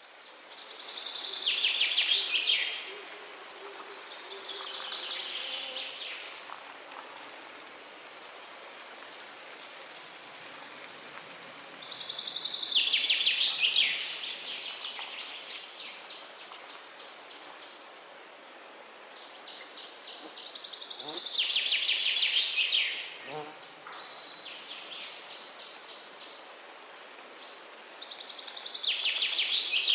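Forest ambience: a bird repeatedly sings a loud, fast trilled phrase that falls in pitch, about every eight to ten seconds, over a steady high hiss of insects.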